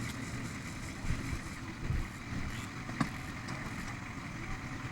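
A steady low engine-like rumble, with one sharp click about three seconds in.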